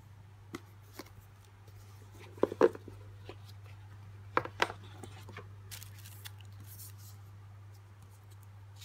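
Hands handling a cardboard gift box and its paper contents: a few light taps, two pairs of louder knocks a little after two seconds and again around four and a half seconds in, then paper rustling, over a steady low hum.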